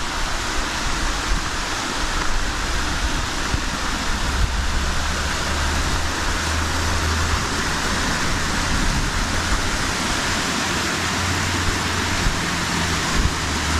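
Rushing water of a small cascading creek and waterfall, a steady hiss with a low rumble underneath.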